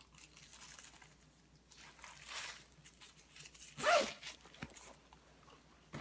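Rustling and handling noise from a pebbled leather hobo handbag and its plastic wrapping as it is turned over, with the loudest rustle about four seconds in and a small click near the end.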